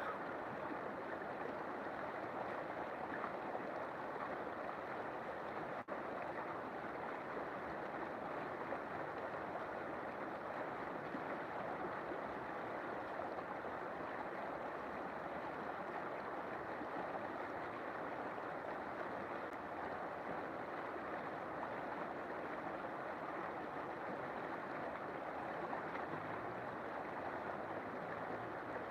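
River water flowing with a steady, even rushing sound, broken by a momentary dip about six seconds in.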